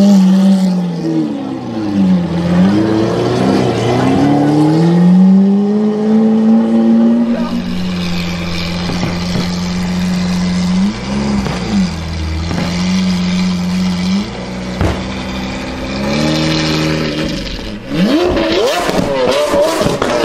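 Lamborghini Aventador's V12 engine revved in repeated blips, rising and falling, then holding a steady low-speed note with a couple of short blips. Near the end it revs up again with several sharp pops.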